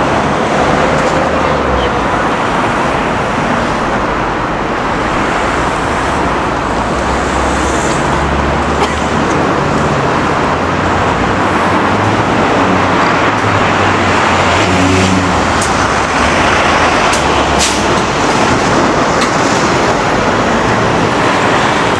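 Busy city street ambience: a steady wash of road traffic noise, with a few faint clicks in the second half.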